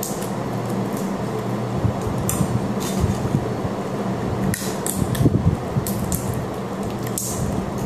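Sunflower seeds being cracked open and shelled by fingers and teeth: irregular small crisp cracks and clicks, over a steady low hum.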